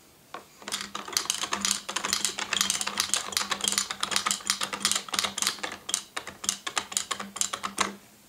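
Little People plastic horse-and-princess figures clattering down the toy castle's plastic ramp: rapid, uneven plastic clicking that starts about half a second in and keeps going for several seconds.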